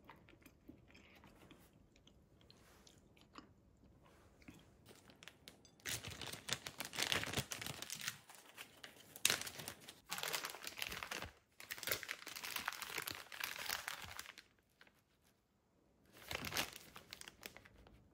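A few faint light clicks, then clear plastic bags crinkling loudly in several bursts from about six seconds in as scone wedges are handled in them, with one last short burst near the end.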